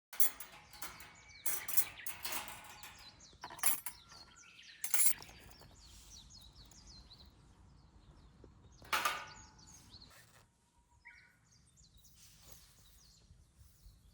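Irregular sharp knocks, clinks and crackles from a wood fire being built and lit in a folding stainless-steel fire pit, loudest in the first half, with birds chirping faintly.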